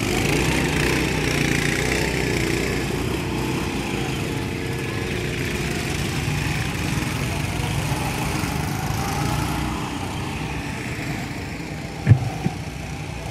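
Several small gasoline go-kart engines running as the karts pull away, loudest at first and slowly fading. A short knock near the end.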